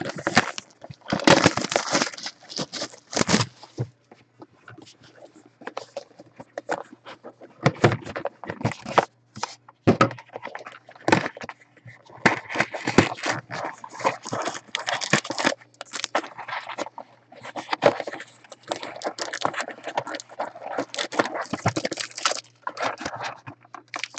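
Trading cards, gold foil packs and plastic card holders being handled: irregular crinkling, scraping and clicking of card stock, foil and plastic, over a faint steady low hum.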